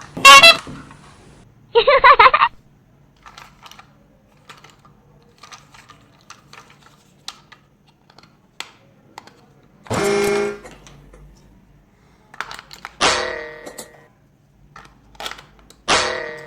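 Scattered small clicks and taps, like plastic pieces being handled, broken by a few short, loud pitched sounds.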